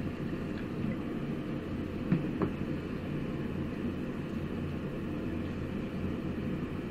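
Steady low background rumble, with a few faint scrapes of a wooden spatula stirring in a cast iron wok about two seconds in.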